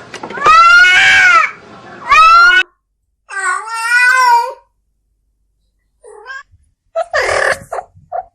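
Cat mating calls: a cat in heat caterwauling, with three loud, drawn-out yowls that rise and fall in pitch, then after a pause a few fainter, shorter calls near the end.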